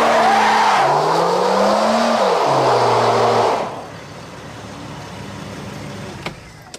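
Car engine revving up and down as the stuck car fails to get moving. The revving stops about three and a half seconds in, leaving a quieter steady sound, and a single sharp click comes near the end.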